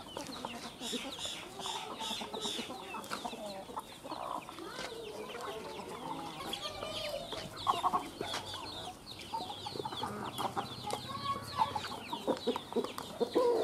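A flock of domestic chickens calling: many short, high, falling chick peeps overlapping throughout, over the lower clucks of hens.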